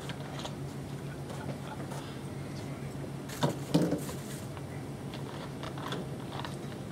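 Room tone with a steady low hum, broken about three and a half seconds in by two short knocks, as of something handled on a table.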